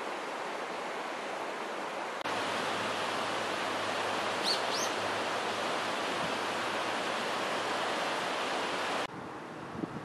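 Steady rushing of a mountain river in a gorge. The rush jumps louder a couple of seconds in and drops suddenly near the end, and two brief rising high chirps sound about halfway through.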